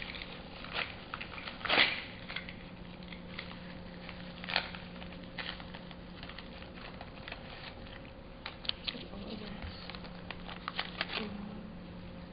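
A small cardboard box and its paper packaging being opened by hand: scattered rustling, crinkling and tearing, with louder sharp crackles about two seconds in and again about four and a half seconds in. A steady low hum runs underneath.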